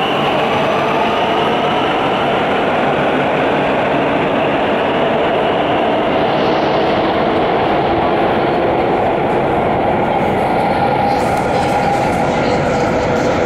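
Warsaw Metro train running through the station: a steady, loud rumble of wheels on rail with the whine of its traction motors, several tones slowly sliding in pitch.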